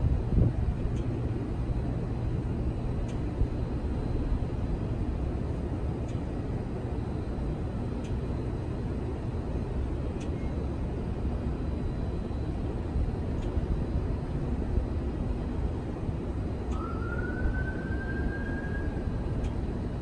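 Steady low rumble of city traffic. Near the end a distant siren rises in pitch and then holds.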